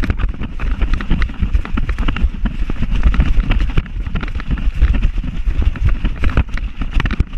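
Wind rumbling on the microphone of a camera carried along at a run, with irregular jolts and knocks from the running.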